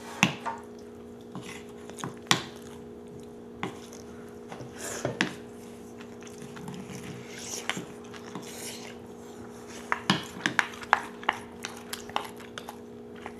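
Chopsticks and spoons clicking and scraping against bowls and a griddle pan of kimchi stew while serving and eating: scattered single clinks, with a quicker run of clinks about ten seconds in.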